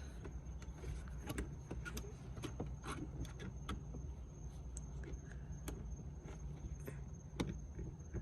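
Small scattered clicks and taps of plastic as an LED bulb is pushed into a car's dome light housing, over a steady low hum.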